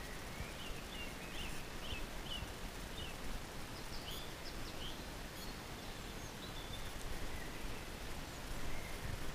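Steady outdoor background noise over open water, with a run of short, high bird chirps during the first half.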